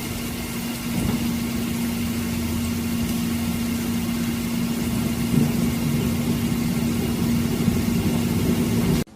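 A steady motor hum at a constant pitch, running evenly throughout.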